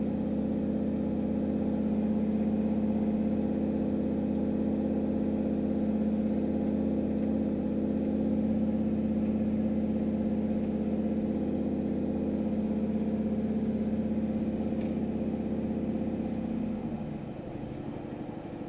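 Turbocharged Chevrolet Silverado's engine and exhaust heard from inside the cab: a steady drone while driving, which drops in level about seventeen seconds in.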